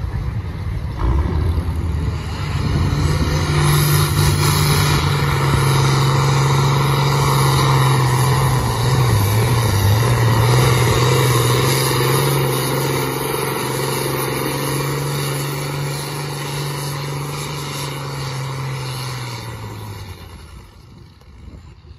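New Holland TM120 tractor's diesel engine running hard at steady high revs while pulling a weight-transfer sled, with a brief dip in the note about halfway through. The engine sound fades away in the last couple of seconds.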